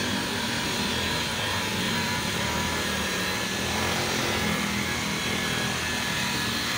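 Corded electric rotary polisher with a foam pad running steadily, buffing wax on a car's painted rear panel.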